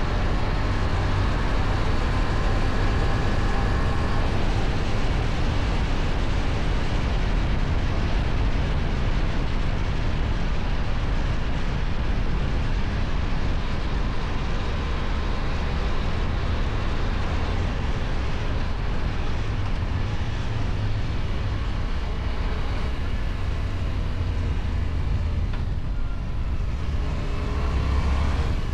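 Kove 625X Adventure motorcycle's engine and stock exhaust running steadily while under way, with a slight pickup in engine pitch near the end.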